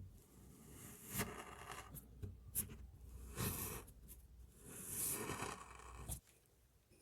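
Kinetic sand being handled: a series of soft grainy crunches and scrapes, some sharp and some drawn out over about half a second, stopping about a second before the end.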